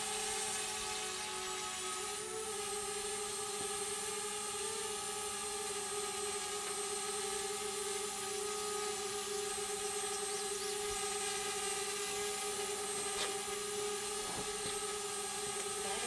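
Drone in flight with its propellers humming at a steady, unchanging pitch.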